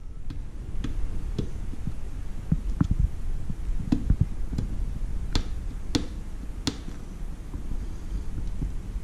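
Fingers pressing and rubbing an adhesive patch into the roof channel of a Toyota Prado 150: light scattered clicks and taps, with three sharper clicks a little past the middle, over a low rumble.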